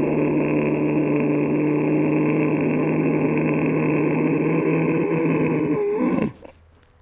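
Ujjayi pranayama breath: a long, steady inhalation drawn through a deliberately tightened throat, which stops abruptly about six seconds in.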